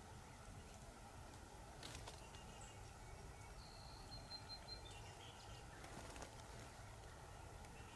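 Near silence: faint open-air background with a thin, high bird note held for about a second near the middle.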